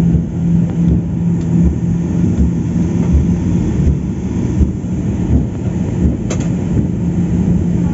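Cabin noise of a Boeing 737-800 taxiing: a steady low rumble with a steady hum from its CFM56 turbofans at taxi power, with soft low thumps as it rolls along. A single sharp click about six seconds in.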